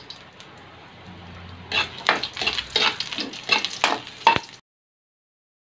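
Ginger slices sizzling in hot oil in a metal frying pan. From about two seconds in, a metal spoon stirs and scrapes them against the pan in a quick run of strokes. The sound then cuts off suddenly.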